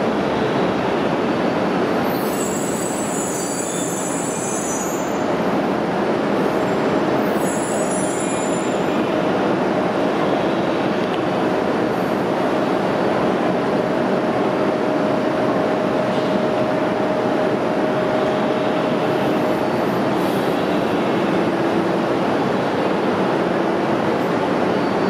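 E2 series Shinkansen train rolling slowly into a station platform: a steady running rumble with two brief high-pitched squeals in the first nine seconds and a steady whine held from about five to twenty seconds in.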